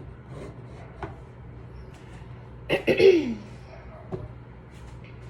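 A short vocal sound from a person about three seconds in, a noisy burst that slides down in pitch, over a steady low hum with a few light clicks.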